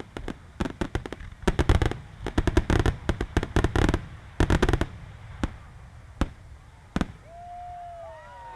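Fireworks finale: a rapid barrage of aerial shell explosions, dozens of sharp bangs in quick succession. It thins after about five seconds to a few single booms about a second apart. Near the end a held tone and a few gliding whistle-like tones come in.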